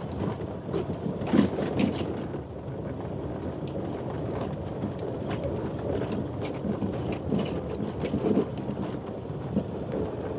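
Maruti Suzuki Alto 800's small three-cylinder engine running at low speed with a steady drone, the car body knocking and rattling now and then as it crawls over a rough, unpaved mountain track.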